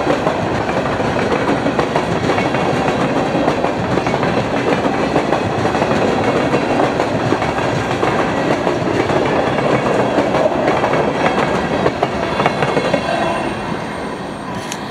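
Empty freight cars of a CSX train rolling past, a steady wheel rumble with clickety-clack over the rail joints, fading over the last few seconds as the end of the train goes by.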